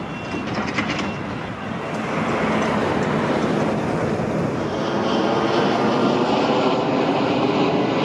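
An engine running under a rushing hiss, growing louder about two seconds in and then holding steady.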